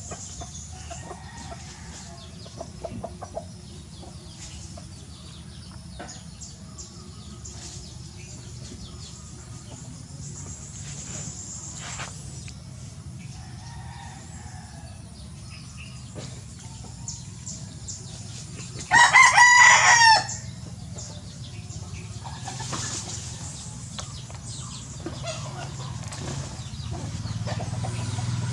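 A rooster crows once, loudly, about two-thirds of the way through, a single call of a little over a second. Around it are faint clucks and chirps over a low steady hum.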